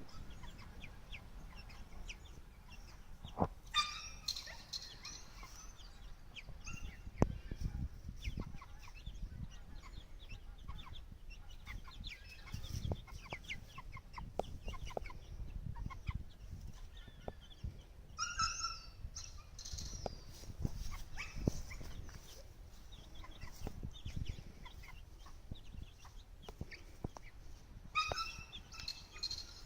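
Chickens clucking in short scattered notes, with a louder drawn-out call three times, at about 4, 18 and 28 seconds in.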